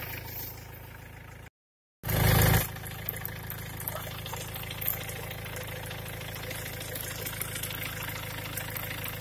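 Windshield washer fluid draining in a thin stream from a Ford Transit's washer reservoir into a cut-down plastic bottle, over the steady hum of the van's engine idling. About a second and a half in the sound drops out for half a second, then comes back with a brief loud rush.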